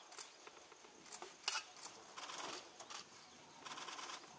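Camera shutters clicking: scattered single shots, the sharpest about one and a half seconds in, and two rapid bursts of fast clicks, one a little past two seconds in and one near the end.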